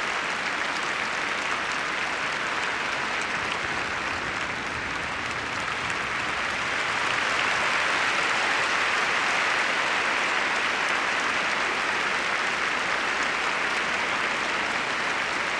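Large arena crowd applauding steadily, growing louder about halfway through.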